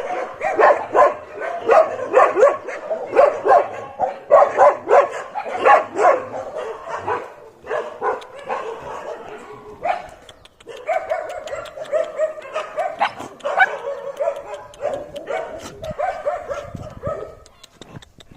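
Dog yelping rapidly and excitedly, then giving long drawn-out whines.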